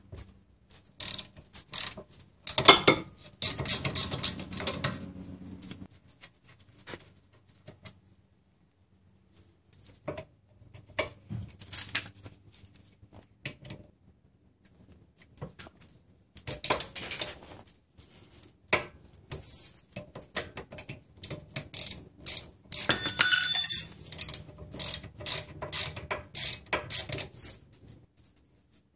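Hand wrenches turning out the slide-pin bolts of a 2003 Honda Accord rear brake caliper: irregular bursts of clicking and metal-on-metal clinks, with a bright ringing clink of steel about 23 seconds in.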